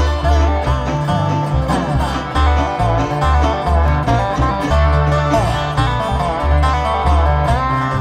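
A live band playing a song in a bluegrass or country style, with plucked strings over a pulsing bass line.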